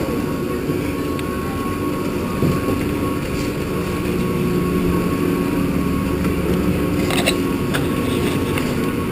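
Chairlift terminal machinery running with a steady hum that holds a few constant tones, heard at the loading point. A short cluster of clicks and clatter comes about seven seconds in.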